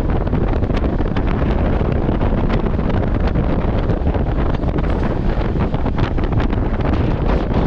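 Wind buffeting the microphone over the steady rumble of a moving express train heard from on board, with scattered short clicks and rattles from the running gear and coach.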